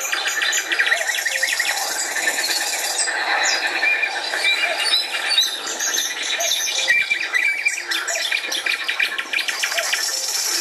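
Dense chorus of many songbirds singing and chirping at once, with overlapping trills and quick repeated notes and a lower short call recurring now and then.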